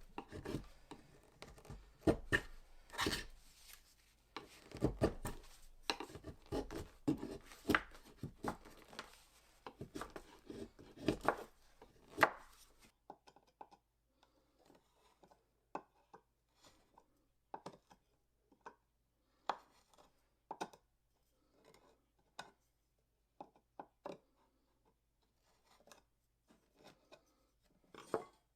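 A blade shaving wood from an oak axe handle in quick, repeated cutting strokes. About halfway through, the strokes become sparser and fainter.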